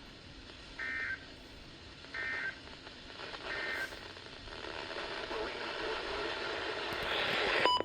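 EAS/SAME end-of-message data signal: three short warbling digital tone bursts about a second and a quarter apart, marking the end of the warning. A hiss of radio static then builds up and cuts off sharply near the end with a click.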